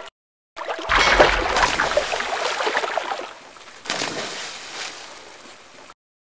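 Cartoon sound effect of submarines surfacing: a loud rush of splashing water with a deep rumble underneath, starting about a second in. A second, smaller splash comes near four seconds and fades away.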